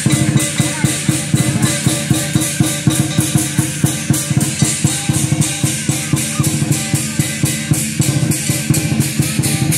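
Lion dance percussion: a large drum beating with cymbals clashing on a fast, steady beat of about five strokes a second.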